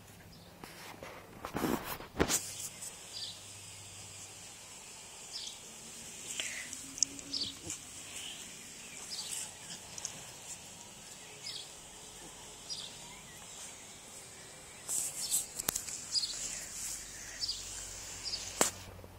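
Outdoor garden ambience with scattered short bird chirps and a faint steady high hiss. A few sharp clicks and rustles come about two seconds in and again near the end.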